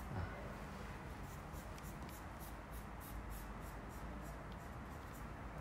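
Green felt-tip pen sketching on thin yellow tracing paper: a quick run of short, scratchy pen strokes, a few a second.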